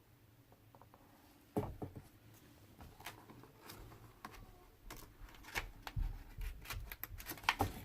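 Paper rustling with soft clicks and low thumps as a picture book is handled and a page is turned, starting about a second and a half in after near silence.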